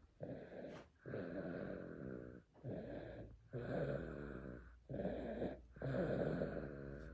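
A baby snoring: about six short snoring breaths in quick succession, roughly one a second, each with a throaty pitched rattle and short pauses between.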